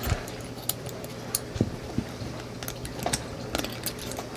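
Small metallic clicks and light taps at irregular intervals as Sig P320 trigger parts are handled while the trigger spring is worked back into place.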